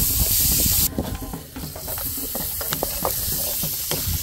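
Sliced white onions and garlic frying in oil in a black skillet, sizzling, with the scraping and clicking of a utensil stirring them in the pan. The sizzle is loud for about the first second, then drops to a softer crackle with scattered ticks.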